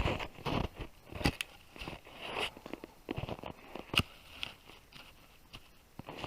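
Irregular crunching and scraping in snow, with a few sharp clicks, the sharpest about a second in and again near the middle, as someone works at or moves around a trap.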